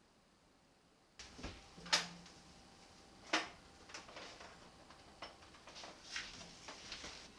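Light clacks and knocks of household objects being handled, starting after about a second of quiet: a handful of sharp clicks spread unevenly over several seconds, the loudest about two and three seconds in.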